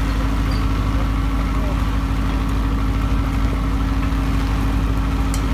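An engine idling with a steady low drone.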